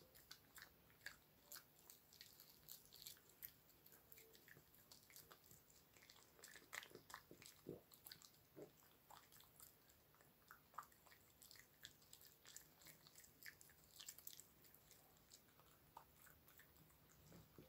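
Dog chewing a chicken breast fillet treat: faint, irregular crunching clicks.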